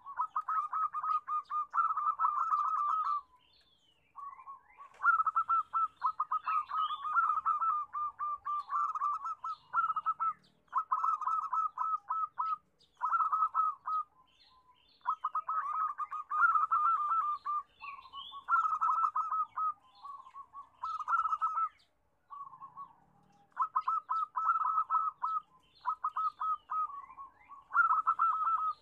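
Zebra dove (perkutut) singing its staccato cooing song: phrase after phrase of rapid stuttering notes, each a second or two long with short pauses between. Faint higher chirps sound in the background.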